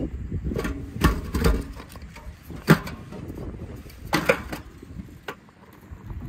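Split firewood knocking and clattering as pieces are loaded by hand into a small steel wood-burning stove: a handful of separate sharp knocks, the loudest about two and a half seconds in. A low rumble sits under the first second or so.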